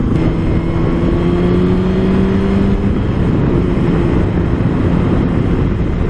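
Suzuki DR650 single-cylinder dual-sport motorcycle running at road speed under heavy wind rush on a helmet-mounted mic; the engine note rises slightly over the first few seconds, then holds steady.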